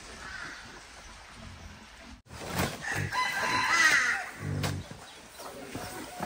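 A rooster crowing once, a rising-and-falling call that starts a little past the middle and is the loudest sound here.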